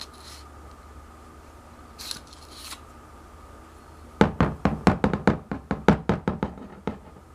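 A quick run of about a dozen sharp knocks, several a second, from hard parts tapping together as the Beretta 92FS barrel is brushed out one last time. Two faint scrapes come before them.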